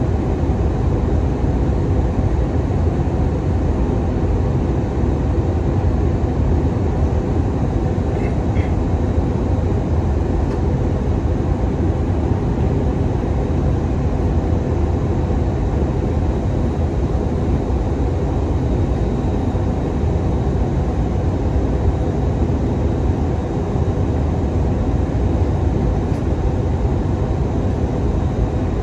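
Steady cabin noise inside an Airbus A319-100 on its approach: the drone of its CFM56 engines and rushing air, mostly a low rumble, with a faint steady high whine over it.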